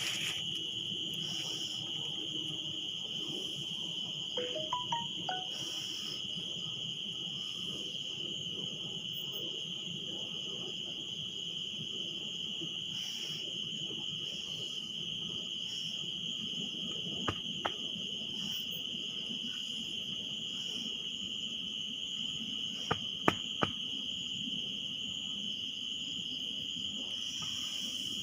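Steady, high-pitched, unbroken chirring of insects. A few sharp clicks come in two small groups, about two-thirds of the way through and again a few seconds later.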